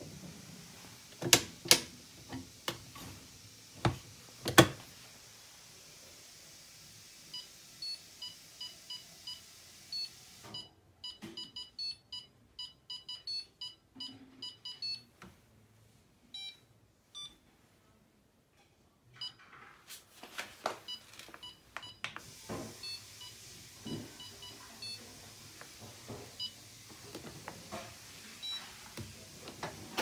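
A few sharp knocks and clinks from the loaded dish drawer, then the Fisher & Paykel DishDrawer's control panel giving many short high beeps in quick succession as its wash-program buttons are pressed. More knocks and a few scattered beeps follow later.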